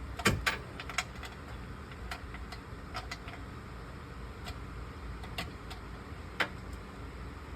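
Irregular sharp metallic clicks and taps from hand tools being handled while working to loosen the oil drain plug, over a steady low hum. The loudest clicks come just after the start and again near the end.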